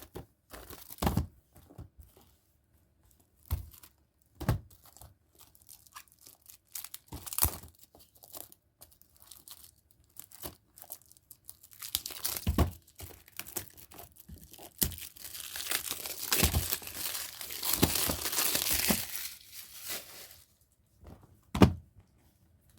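Plastic shrink-wrap being torn and peeled off a disc case, crinkling for several seconds in the middle, with scattered handling clicks and one sharp click of the case near the end.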